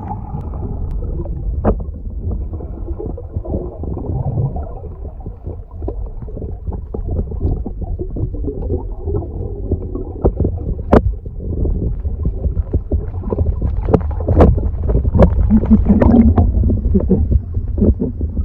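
Muffled underwater sound from a submerged action camera during a breath-hold dive: steady low water rumble with a few sharp clicks. It gets busier and louder near the end as the divers return to the surface.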